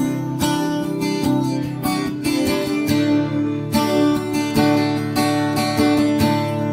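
Instrumental karaoke backing track led by strummed acoustic guitar, with a steady beat and no lead vocal.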